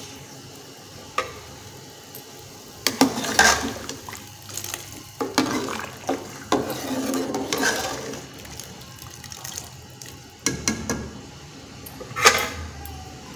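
Boiled chickpeas being tipped into a pot of boiling masala gravy, with irregular splashing and sloshing over several seconds. A metal ladle stirs and knocks against the metal pot, with a sharp clank near the end.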